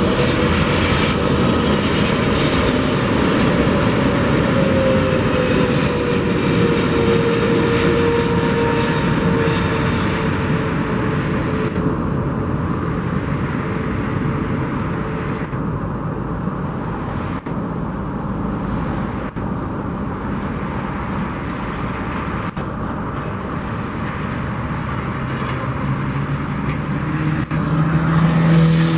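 Boeing 777-300ER's GE90 turbofan engines on final approach: a steady jet roar with a whine that falls slowly in pitch over the first ten seconds. Near the end the sound swells as the airliner touches down.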